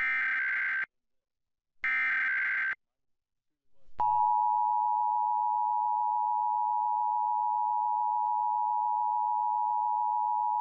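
Emergency Alert System broadcast tones: the last two of the three SAME header data bursts, each a short digital burst about a second long, then, about four seconds in, the two-tone EAS attention signal (853 and 960 Hz) starts and holds steady.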